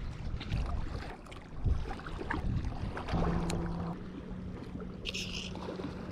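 Wind buffeting the microphone, with small clicks and rustles of hands handling a plastic bait jar. A steady low hum starts about three seconds in, and a short, sharp hiss comes about five seconds in.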